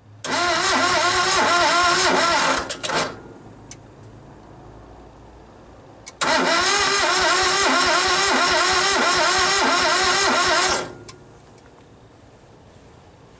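Isuzu diesel engine of a Crafco EZ-Pour melter being cranked by its starter motor twice, for about three seconds and then about four and a half seconds. The starter whine rises and falls in a quick rhythm as the engine turns over against compression, and it never fires. This is a no-start on an engine that had sat unused for three years: fuel had not yet been brought up to the glow plugs.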